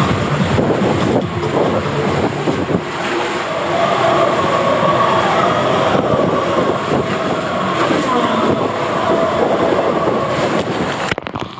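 Steady rushing and rumbling of a rider sliding fast down an enclosed water slide tube, water and body rubbing along the tube walls, with a few held tones from the slide's built-in sound effects over it. The rushing drops away sharply near the end.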